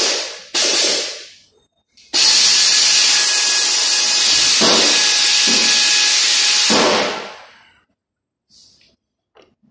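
Compressed air hissing from an air tool worked at a Toyota Land Cruiser V8 engine on its stand: a short burst at the start, then a steady blast of about five seconds from about two seconds in, which stops near the end.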